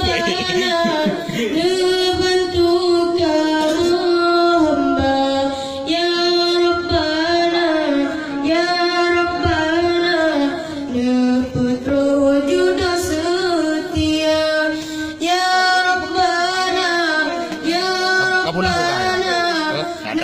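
A high, young-sounding voice singing a long ornamented melody, with held notes that waver and turn, and brief breaths between phrases.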